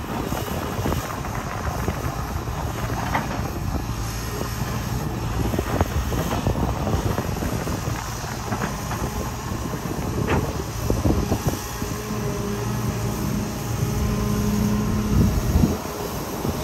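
Crawler excavator's diesel engine running steadily under hydraulic load, pulling harder for a couple of seconds near the end, with occasional knocks of the bucket against earth and rock.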